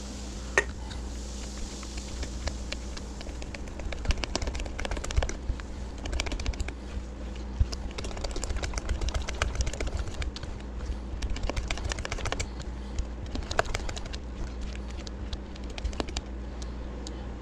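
Spoon working thick corn muffin batter in a mixing bowl: many light, irregular clicks and taps, over a steady low hum.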